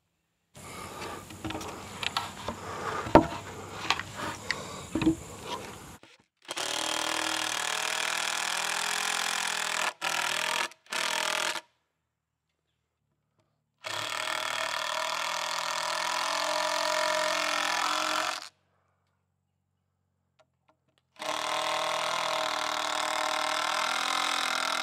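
Handheld power drill driving fasteners into a timber support brace in three long steady runs, the middle ones stopping and restarting. Before the first run, knocks and rattles of wood and ladder being handled, one sharp knock the loudest.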